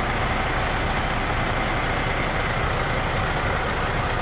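Heavy diesel engine of construction machinery running steadily, with no hammer blows standing out.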